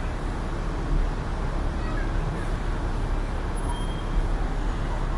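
Steady city street traffic noise with a low rumble, with a few faint brief high-pitched tones over it.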